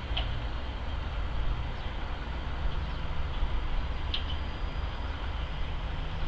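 Steady, low, distant engine rumble, with two brief high chirps, one just after the start and one about four seconds in.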